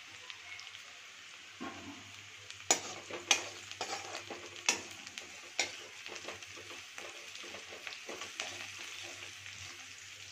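Sliced onions frying in hot mustard oil in a steel kadhai, a steady sizzle, while a steel spoon stirs them, scraping and clinking against the pan. The clinks are loudest a few seconds in.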